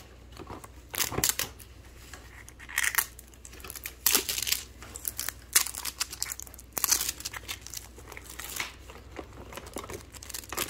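Plastic packaging of boxed wireless earbuds crinkling in irregular bursts as it is handled and torn open.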